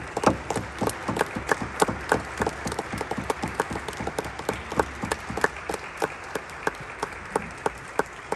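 Audience applauding, a dense patter of many hands clapping that thins to scattered claps toward the end.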